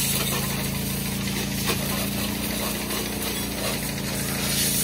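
Pressure washer running: a steady hum from its pump motor under the hiss of the high-pressure water jet spraying a motorcycle.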